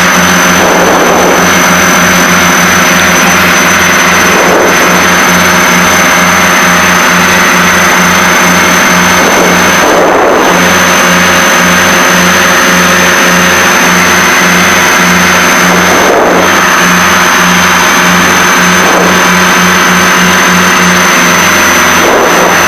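Cabin noise of a Piper Seneca twin-engine piston airplane in flight: both engines and propellers running steadily, a loud even drone with a regular pulsing beat in its low end. A thin, high steady tone runs over it.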